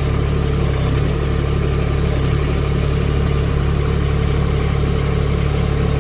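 Branson 1905 compact tractor's diesel engine running steadily at idle.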